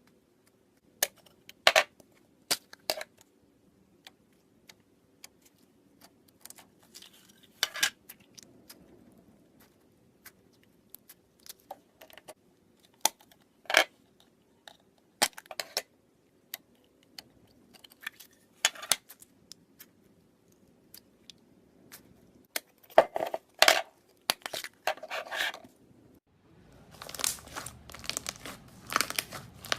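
Slime being handled: scattered sharp clicks and crackles, then a dense run of crinkling and crackling in the last few seconds.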